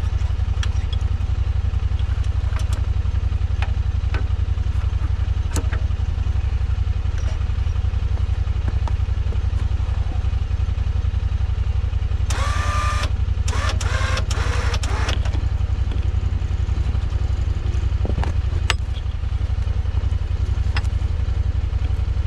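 Vehicle engine idling steadily, with scattered small metallic clicks. About twelve seconds in come a few seconds of louder metal clanking and scraping as the plow is worked onto a bent mount.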